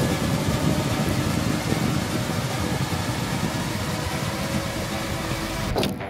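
Steady rumbling rush of air over a phone's microphone as the phone whirls round taped to a spinning ceiling fan blade, with a faint hum from the fan.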